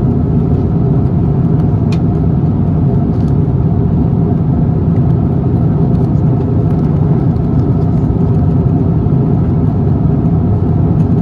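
Steady in-flight cabin noise of an Airbus A350-900 during descent: a deep, even rumble of engines and airflow with a few steady hums over it.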